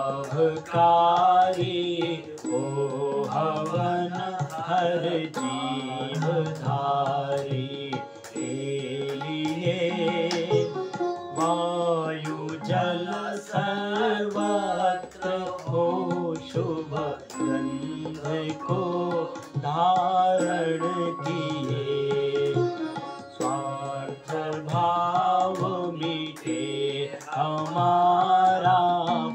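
A devotional Hindu song sung by a man, with drum strokes keeping a steady beat.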